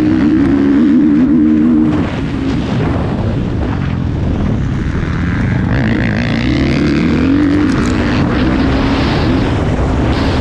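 Motocross bike engine revving hard under race throttle, its pitch climbing and falling as the rider opens and closes the throttle, with a rush of noise over it. The revs drop briefly about two seconds in and climb again around six seconds.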